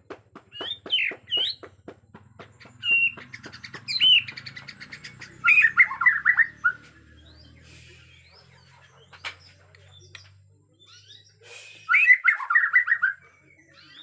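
Bornean white-crowned shama in an agitated state, giving a rapid run of sharp ticks over the first five seconds, then two loud warbled song phrases, one about halfway in and one near the end.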